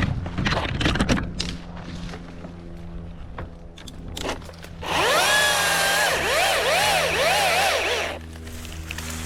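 Milwaukee battery top-handle chainsaw whining for about three seconds, starting about five seconds in, its pitch dipping and recovering again and again as the chain bites into wood. A few knocks come in the first second, over a low steady hum.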